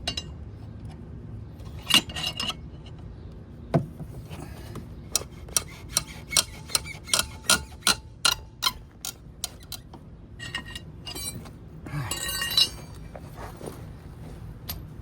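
Metal hand tools clinking and clicking against each other: scattered light metallic knocks, then a run of about two or three clicks a second through the middle, and a busier clatter about twelve seconds in.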